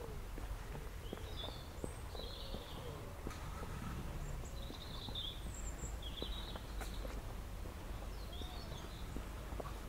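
Small birds chirping in short, scattered calls over a steady low background rumble, with occasional footsteps on a paved path.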